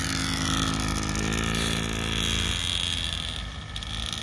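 Small Yamaha youth dirt bike's engine running steadily close by. Its hum fades out about two and a half seconds in as the bike draws away.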